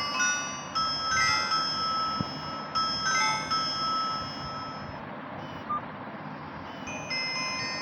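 Nokia mobile phone ringtone: a chiming melody of short, high, bell-like notes from the phone's small loudspeaker. It pauses for about three seconds midway, leaving a steady hiss, and then starts again.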